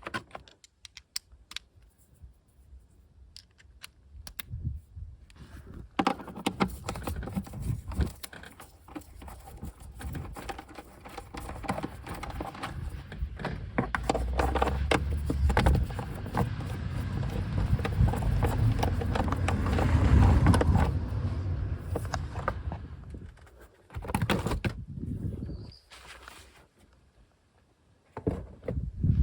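Hand work on a car's fuel-filter fitting: tools and metal parts clicking, rattling and scraping, with rustling. It comes as scattered clicks at first, then a long busy stretch of clatter, and a shorter burst again later.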